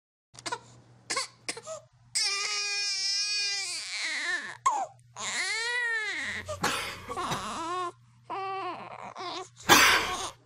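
Newborn baby crying: long wavering wails, starting about two seconds in, with short breaks between them. A short, loud burst of noise comes near the end.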